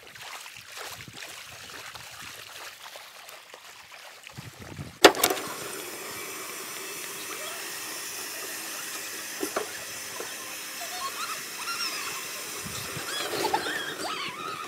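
Shallow stream water trickling over rocks, with faint voices. About five seconds in a sharp click cuts it off, and a steady outdoor hiss follows with faint distant voices.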